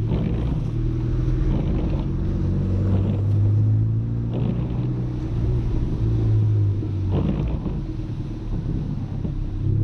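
Audi A3 1.8T's turbocharged four-cylinder engine running with a steady low drone, heard from inside the moving car, with road rumble and a few brief knocks.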